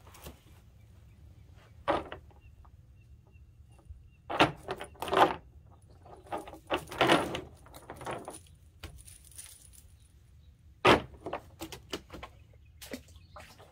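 Cast net being handled on wooden dock boards: its lead weights clatter and rattle in irregular bursts, with a sharp clatter about two seconds in, a longer run of rattling in the middle and another sharp clatter near the end.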